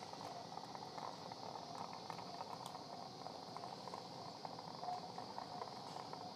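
Surgical suction tube slurping blood and fluid from an open chest cavity: a steady crackling gurgle over a constant hiss.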